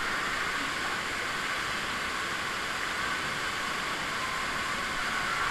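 Steady rush of running water, as from water pouring down a children's pool slide and splashing into the pool.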